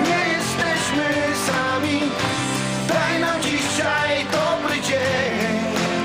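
Rock-style song with guitar and a singing voice over a steady beat.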